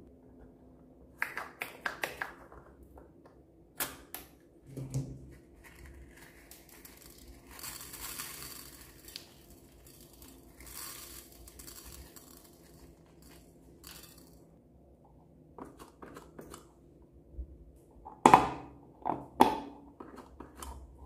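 Hand-handling sounds over a glass dish: scattered clicks and taps, a stretch of small beads pattering onto the glass around the middle, and a few louder knocks and rubs near the end.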